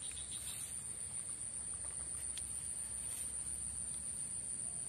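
Steady, high-pitched drone of insects in the surrounding vegetation, with a few faint clicks.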